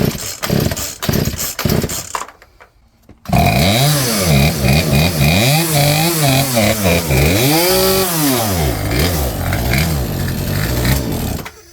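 Poulan P3416 34cc two-stroke chainsaw being started: rapid uneven pulses for about two seconds, a short lull, then it catches about three seconds in and runs, revved up and down several times, before it stops near the end. The saw will not hold an idle on its newly fitted carburetor.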